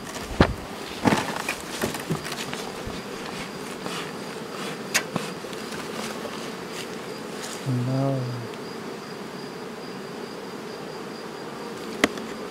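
Honeybees buzzing, a steady dense hum, broken by a few sharp clicks or knocks early on and about five seconds in, and a brief low pitched sound about eight seconds in.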